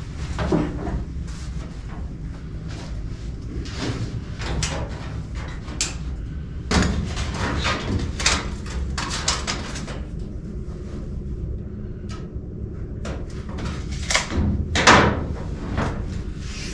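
Hand work on a car's sheet-metal roof while a cut line is marked and taped across it: a run of short scrapes and rubs with a few light knocks, the loudest a little before the middle and near the end, over a steady low hum.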